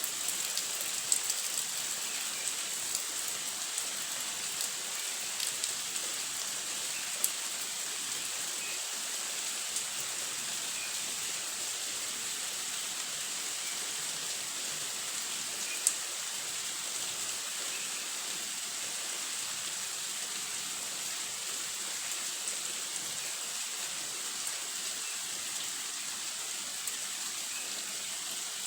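Heavy rain falling steadily as a dense, even hiss, with occasional sharp drop impacts standing out, the loudest one about sixteen seconds in.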